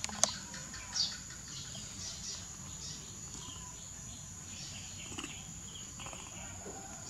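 Steady high-pitched insect drone, with scattered short high chirps and one sharp click about a quarter second in.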